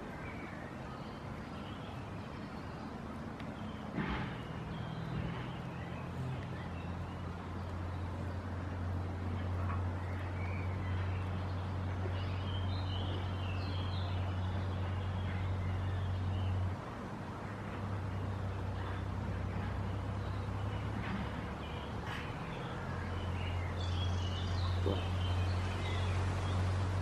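A low, steady machine hum that starts a few seconds in, drops out for several seconds in the middle and comes back, with small birds chirping now and then.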